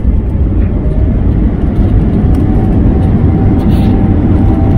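Airbus A321 on the runway, heard inside the cabin: a loud, steady rumble of engines and rolling wheels, with a faint whine that rises slightly in pitch.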